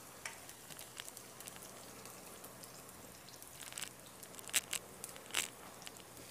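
Food frying in a pan with a faint steady sizzle, broken by a few sharp clicks and scrapes of a spatula against the pan. The loudest clicks come about four and a half and five and a half seconds in.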